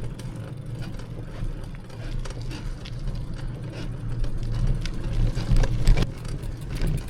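Touring bicycle being ridden or wheeled: a steady low rumble with scattered clicks, then a quick run of mechanical ticking, like a freewheel, from about five seconds in.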